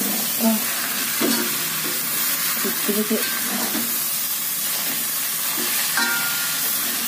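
Water spinach sizzling in an aluminium wok as a metal spatula stirs and turns it, with a few clinks of the spatula against the pan.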